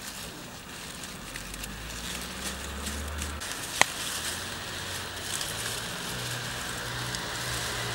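Crackling rustle of ivy leaves being handled, over a low rumble, with one sharp click about four seconds in.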